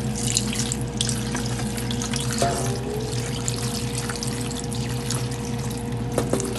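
Pickling brine poured in a steady stream from a metal bowl onto cut mustard greens in a plastic basin, splashing through the leaves: the drained brine going back over the top so the greens soak evenly. A steady low hum runs underneath.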